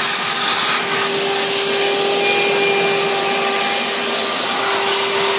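Vacuum cleaner running steadily with a constant hum, sucking up dirt so that it doesn't get into the pump's strainer.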